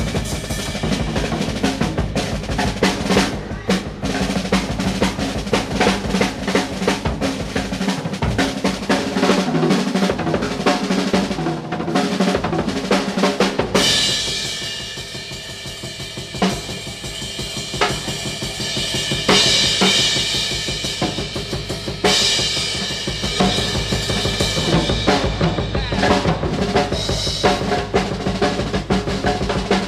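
Jazz drum kit played in a fast solo: rapid snare drum rolls and rimshots over bass drum. About halfway through the playing drops quieter, with cymbals to the fore, then builds again.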